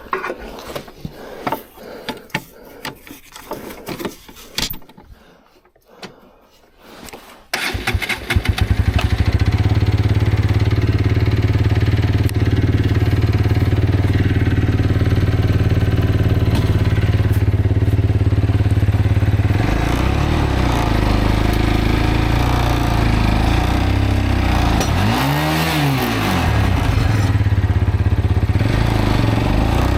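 Irregular sharp clicks and knocks, then a road motorcycle's engine starts about seven and a half seconds in and runs steadily. From about twenty seconds in the engine note changes, and it revs up and down twice near the end.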